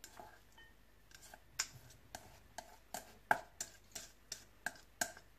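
Chopsticks clicking against a stainless steel mixing bowl while salad is scraped out into a serving bowl: a run of light, sharp clicks, about two to three a second from about a second in.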